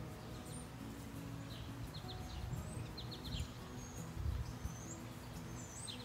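Outdoor ambience: small birds chirping now and then, with a quick run of short chirps a little after three seconds, over a steady low rumble on the microphone.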